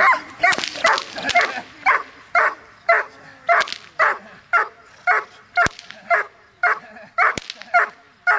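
A young Doberman barks steadily at the protection helper in schutzhund bite work, about two barks a second. Two sharp cracks come between the barks in the second half.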